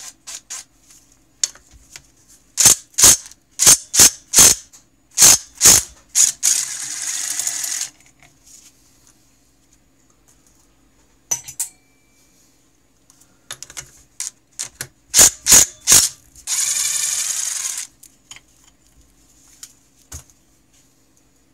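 Hand ratchet wrench with a 16 mm socket backing out snowmobile motor-mount bolts: runs of sharp clicks a fraction of a second apart, twice followed by a buzz of fast ratcheting lasting about a second and a half.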